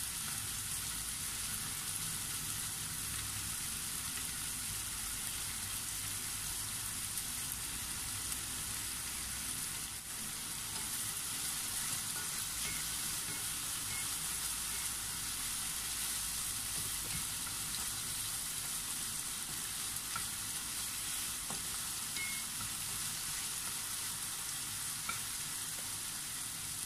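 Pork belly sizzling in soy and oyster sauce in a nonstick frying pan, a steady hiss, stirred now and then with a wooden spatula.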